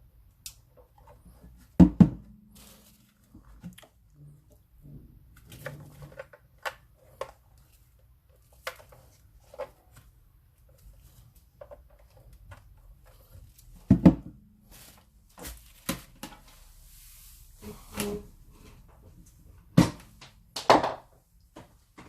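Handling noises from unboxing a Sven SRP-535 speaker: scattered clicks and knocks of packaging and plastic being moved about. There are four louder thumps, one about two seconds in, one in the middle and two near the end, and a brief rustle shortly before the end.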